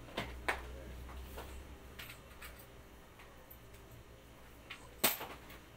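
Scattered light clicks and taps of small items being handled on a counter, the loudest about five seconds in, over a low steady hum.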